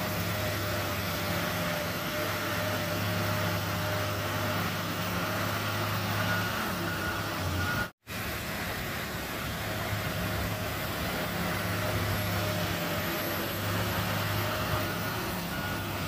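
Shantui crawler bulldozer's diesel engine running steadily under load as it pushes soil, a low hum with a steady whine over it. The sound cuts out for a moment about halfway.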